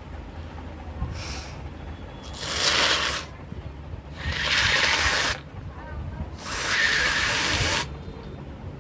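A person blowing their nose forcefully. There is a short, fainter blow about a second in, then three long, loud blows of about a second each, a second or so apart.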